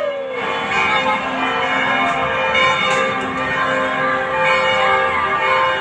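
Bells ringing in many overlapping tones, with two short faint pops in the middle.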